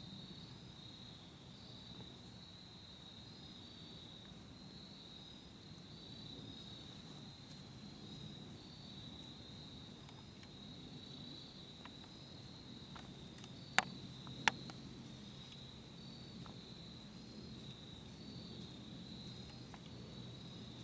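Insects chirping in a steady, pulsing chorus, with a soft low background rumble. A little past the middle come two sharp clicks less than a second apart, the loudest sounds.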